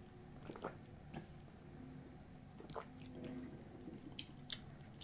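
Faint mouth sounds of a person tasting a drink after a sip: a few soft lip smacks and swallowing clicks, the sharpest near the end, over a low steady room hum.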